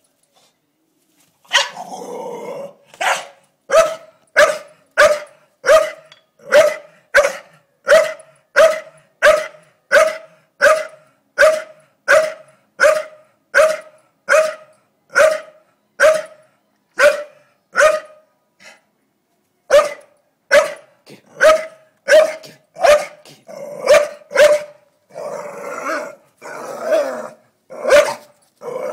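Staffordshire bull terrier barking over and over at a blue-tongue lizard, about one and a half barks a second. A growl leads into the barking, which pauses briefly about two-thirds through, and growls run between the barks near the end.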